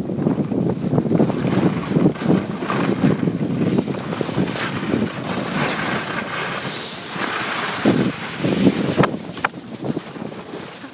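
Wind buffeting a phone's microphone while skiing downhill, with the hiss of skis sliding over snow; a couple of sharp knocks near the end.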